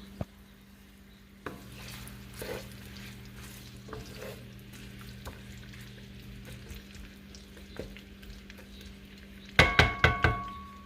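Chopped onions frying quietly in olive oil in a skillet, with a few light knocks. Near the end a cooking utensil strikes the pan several times in quick succession, each knock ringing.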